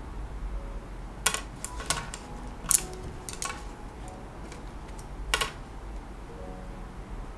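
Paintbrushes clinking and tapping against the water cup and tabletop: a quick run of sharp, light clicks in the first half, then one more about five seconds in.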